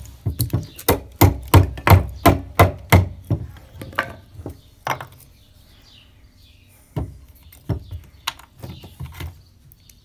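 Wooden baton knocking a wooden wedge into the split of a small log, a fast run of sharp wood-on-wood knocks, about three a second, for the first five seconds. A few scattered knocks follow near the end.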